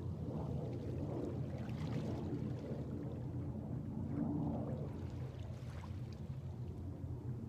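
Small waves washing softly onto a sandy beach in gentle swells every couple of seconds, over a steady low rumble.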